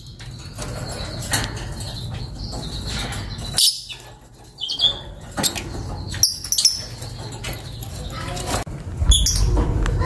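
Fischer's lovebird chirping and chattering: a run of short, sharp chirps and scratchy clicks over a steady low rumble.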